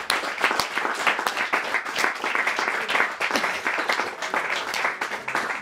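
Audience applauding, the individual hand claps distinct and densely packed.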